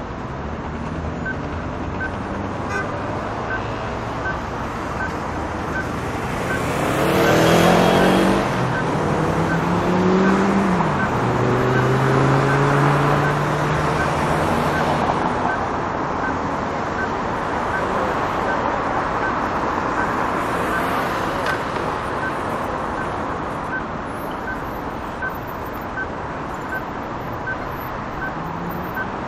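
Heavy city street traffic: a steady wash of tyre and engine noise with several vehicles passing close, the loudest about seven seconds in, their engine notes rising and falling. A faint regular tick sounds about once a second throughout.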